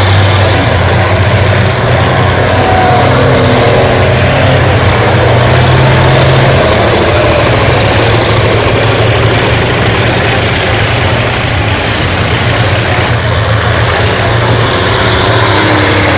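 Diesel engines of several racing combine harvesters, running loud and steady with a deep low hum, under heavy load and pouring black smoke.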